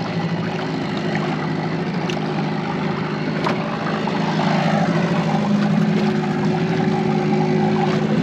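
Boat engine running steadily at trolling speed, a constant low hum over rushing noise, getting a little louder about halfway through.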